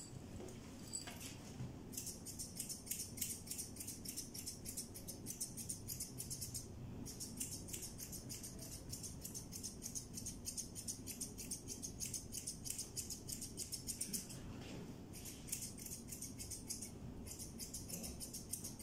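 Steel grooming scissors snipping through a long-haired cat's fur in quick runs of several snips a second, broken by short pauses.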